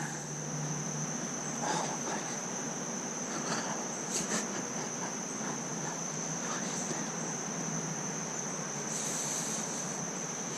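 Insects trilling on one steady high note, over the even rush of flowing creek water, with a few faint clicks.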